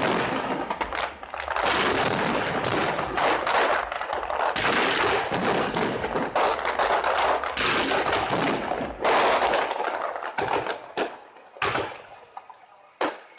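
Fireworks display: a dense run of rapid bangs and crackling for about ten seconds, thinning out to a few separate bangs near the end.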